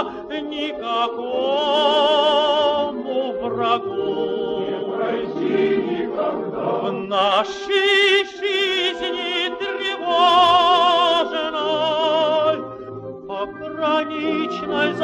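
Male tenor singing a slow, lyrical Soviet song in phrases with wide vibrato, over a sustained accompaniment.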